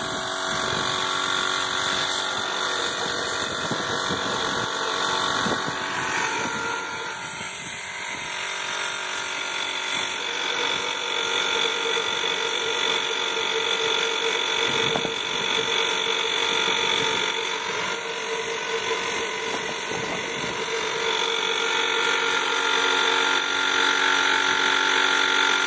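Small electric air blower running steadily on a homemade waste-oil foundry burner, a constant motor whine over an air hiss that grows slightly louder about ten seconds in and again near the end.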